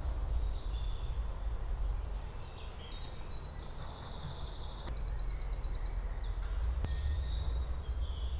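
Woodland birds singing, with scattered chirps and a fast trill about three and a half seconds in, over a steady low rumble.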